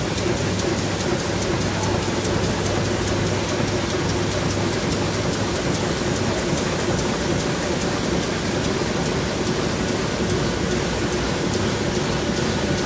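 2008 Heidelberg Speedmaster SM 74 four-colour sheetfed offset press running: a steady, dense mechanical noise with a low hum under it and a faint, fast ticking on top.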